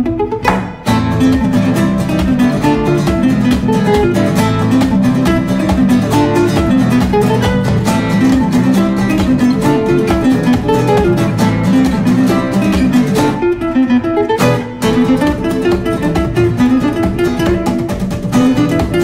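Background music with a busy, fast-moving line of quick notes. It drops out briefly about a second in and again around fourteen seconds.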